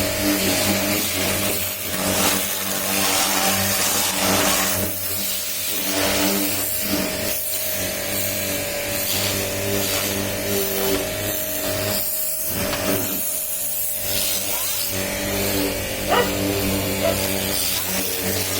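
Electric high-pressure washer running: a steady motor-pump hum under the hiss of the water jet, which thins briefly a little past the middle.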